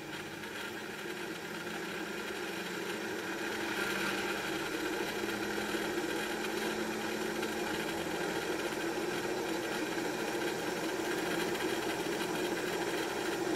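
ECM furnace draft inducer motor running noisily, its 608 ball bearing failing. A steady mechanical running sound that grows a little louder over the first few seconds, then holds level.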